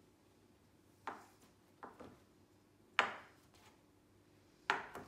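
Chef's knife cutting through a ball of bread dough and knocking on the countertop: five short, sharp knocks, the loudest about three seconds in.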